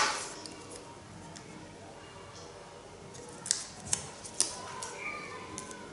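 Quiet handling noise, then several short light clicks and ticks in the second half, from fingertips and nails working a small square of double-sided tape on a card box.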